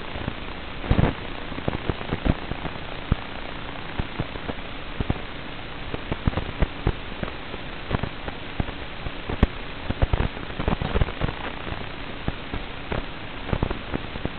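Steady static hiss with irregular crackles and pops, the sound of an analog FPV video link's audio channel.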